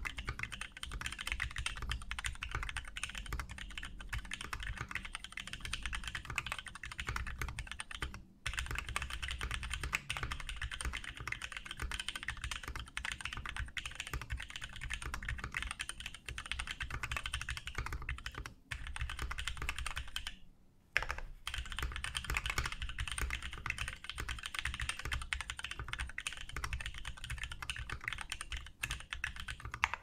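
Fast, continuous typing on a 60% mechanical keyboard with lubed Gsus switches, DSA keycaps and a four-point-mounted carbon fibre plate with o-rings under the PCB: a dense stream of key clacks, broken by a few short pauses, the longest about two-thirds of the way through.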